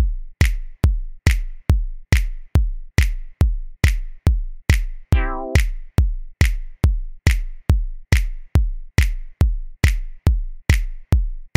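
Background electronic music: a steady drum-machine kick beat, about two and a half beats a second, with one short wavering chord about five seconds in.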